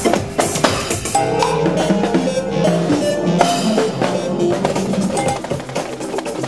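Drum kit and percussion playing a fast, dense groove of snare, rimshot and bass drum hits. From about a second in, held pitched notes sound underneath the drumming.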